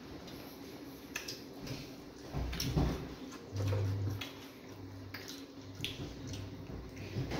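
Close-up eating sounds of fufu and vegetable soup eaten by hand: wet chewing, lip smacks and fingers squishing the soft dough, heard as scattered short moist clicks. A brief low hum comes about three and a half seconds in.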